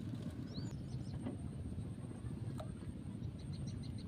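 Outdoor background: a steady low rumble with faint, short high chirps, and a quick run of chirps near the end. A light click comes about two-thirds of the way through.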